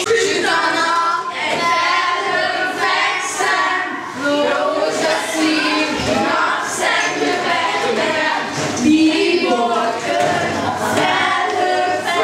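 A group of children singing together without instruments.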